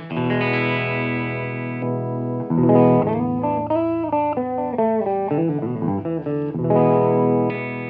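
1960s Höfner Galaxie Deluxe electric guitar being played: ringing chords, then a run of single notes with wavering, bending pitch, then chords again near the end.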